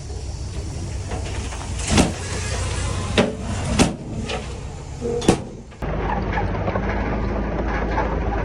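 Diesel engine of heavy earthmoving machinery running steadily, with four loud metallic clangs in the first half. About six seconds in the sound jumps to a louder, steady engine drone.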